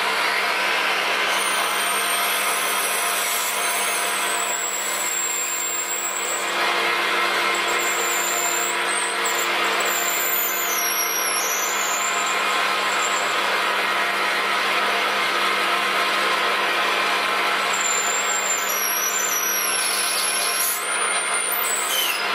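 Metal lathe running while a twist drill held in the tailstock chuck is fed into the spinning workpiece: a steady motor and gear hum with a thin, high, wavering squeal from the drill cutting, through most of the first half and again near the end.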